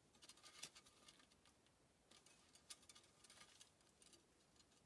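Faint scattered clicks and crackles of kindling being lit and handled in a small titanium wood stove, coming in two spells.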